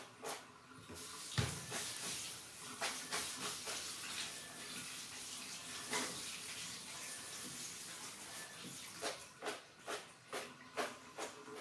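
Tap water running from a hose sprayer into a plastic colander and splashing in a stainless steel sink, with knocks and rattles as the colander is handled and a loud thump about a second and a half in. Near the end the flow gives way to a run of separate knocks as the colander is shaken out.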